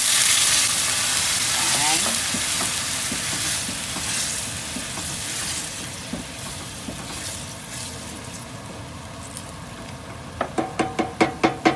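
Water hitting a very hot cast-iron skillet of sautéed onions and tomato paste: a loud sizzle that slowly dies down as a wooden spatula stirs the sauce. A quick run of knocks near the end.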